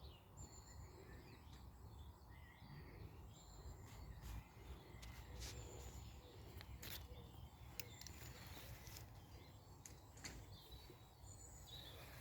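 Faint small-bird chirps and song over a low rumble, with several sharp clicks scattered through.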